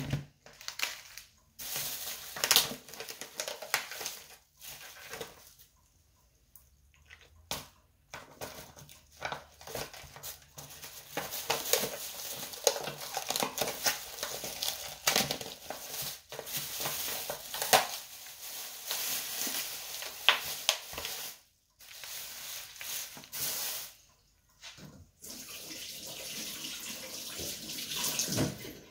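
Plastic cling film being pulled and peeled off clear plastic meat trays, crinkling and crackling in irregular spells with a few short pauses.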